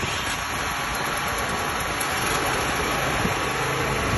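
Engine of a 5 kVA portable petrol generator running steadily at constant speed.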